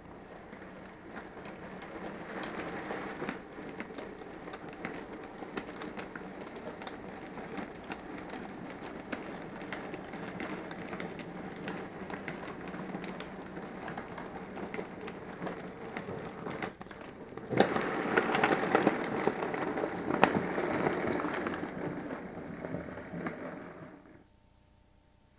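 Model railway goods train of wagons rolling past, a dense clicking rattle of the small wheels running over the track. It grows louder about two-thirds of the way through as the wagons pass close, then stops suddenly near the end.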